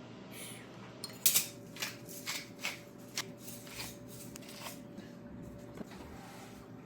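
Kitchen prep handling: a run of about six sharp, irregular clicks and taps, like utensils or packaging being handled, the loudest a little over a second in.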